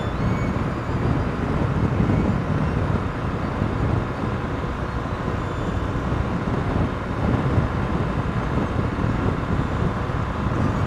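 BMW R 1200 GS motorcycle cruising at motorway speed: a steady mix of its boxer-twin engine, wind and road noise, unchanging throughout.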